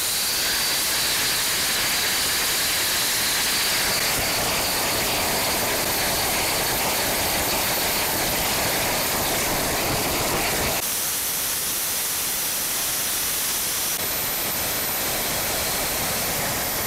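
Homemade air-breathing jet engine with a stainless-steel de Laval nozzle running, its exhaust making a loud, steady rushing hiss. The sound changes suddenly about eleven seconds in and again near the end.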